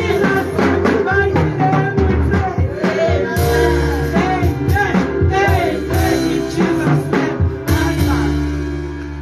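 Music with a singing voice over drums and bass.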